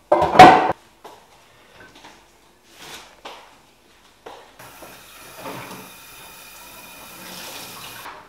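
A loud, short clatter of something hard in the kitchen just after the start, a few light knocks, then a kitchen mixer tap running into the sink for about three and a half seconds, shut off near the end.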